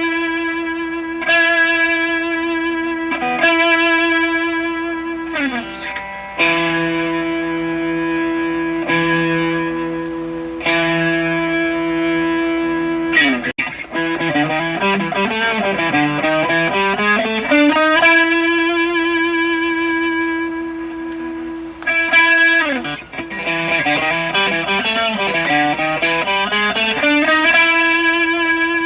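Fender Japan ST54-95LS Stratocaster-style electric guitar, modified and played on its rear (bridge) pickup through an amp. It plays long sustained single notes with string bends and wide vibrato in the middle and again near the end.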